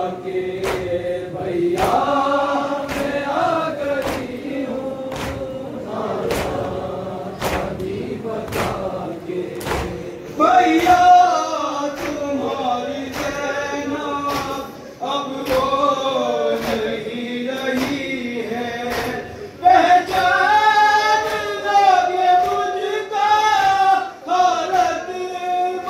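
Voices chanting a noha, a Shia mourning lament, in long sung phrases, over evenly spaced sharp slaps about three every two seconds, the beat of matam chest-beating. The chanting grows louder about ten seconds in and again near twenty seconds.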